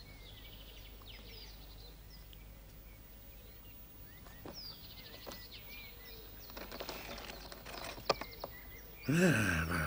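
Faint forest ambience of small birds chirping over a low steady hum, with a few light taps in the second half. A voice comes in near the end.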